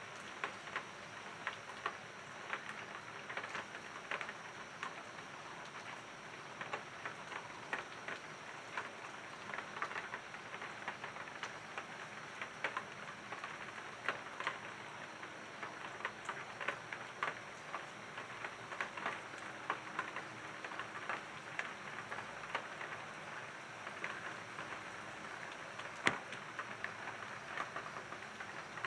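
Steady rain falling, with many separate drops striking close by as sharp ticks over an even hiss.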